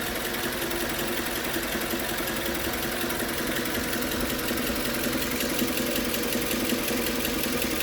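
Suzuki Grand Vitara's 2.4 J24B four-cylinder engine idling hot, with a fairly strong, rapid, even knock from the bottom end near the oil pan. The knock appears only once the engine is fully warm and the oil has thinned; its cause is unknown to the owner, who has found no play in the connecting rods and wonders whether the balance shafts are to blame.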